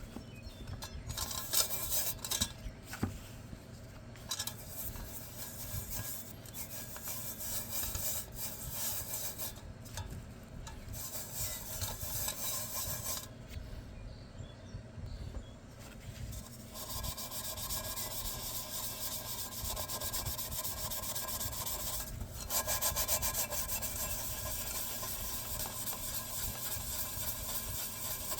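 Sponge rubbing a baking-soda-and-vinegar paste over the metal of a titanium cooking pot to lift sticky campfire tar. It starts as uneven, stop-start rubbing and turns into fast, steady scrubbing about two-thirds of the way through.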